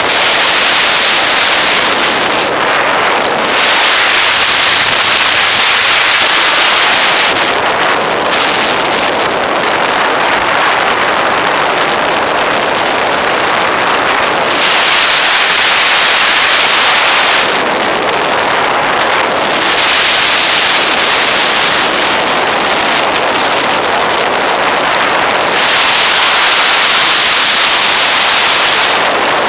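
Wind rushing over the microphone of a camera on a moving motorcycle, with road and riding noise beneath, swelling louder and easing off every few seconds.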